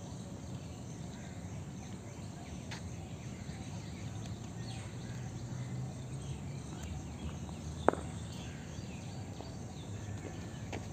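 Outdoor ambience: a steady low hum with faint insect and bird chirping, and one sharp knock near the end.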